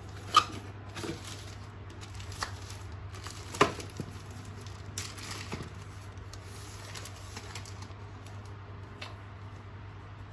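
Cardboard and plastic packaging being handled during an unboxing: a few sharp knocks of cardboard against the box, the strongest about half a second in and again at about three and a half seconds, with plastic wrapping crinkling as parts are pulled out.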